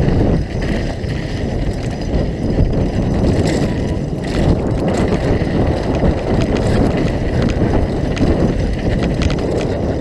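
Mountain bike riding fast down a dirt and gravel trail, heard from a helmet camera: a steady rush of wind on the microphone with the tyres rumbling over the dirt, and scattered clicks and rattles from gravel and the bike.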